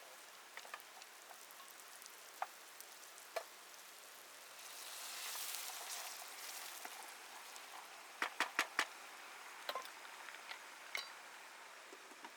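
Wood-fire cooking: crackling and sizzling, with scattered sharp pops over a faint steady hiss. A hiss swells up around the middle, and there is a quick run of four pops about two thirds of the way through.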